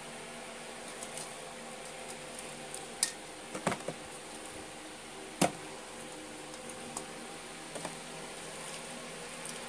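Scattered light clicks and knocks as pieces of fried chicken are picked out by hand from a stainless steel bowl and put into plastic containers, the sharpest knock about halfway through, over a steady background hum.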